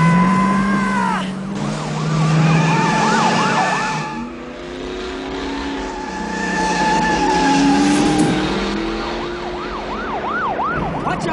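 Car engines revving, with tyres squealing in long wavering screeches.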